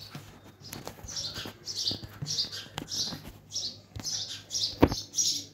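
A small bird chirping over and over, short high chirps at about three a second, with a single sharp click near the end.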